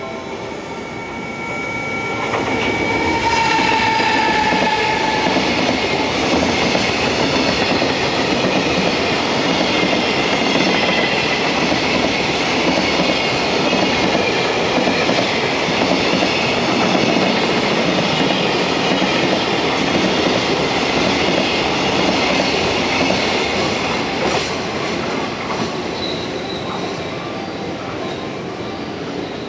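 A freight train hauled by an EF210 electric locomotive passes at speed, with a high whine as it arrives. A long rumble and clatter of container wagons over the rails follows, fading near the end as the train moves away.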